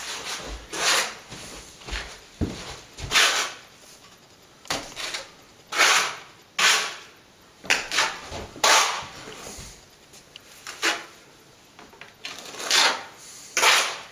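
A plastering tool scraping and pressing a wet mix of stopping plaster and fine sand into a wall patch, in an irregular series of about a dozen short scraping strokes.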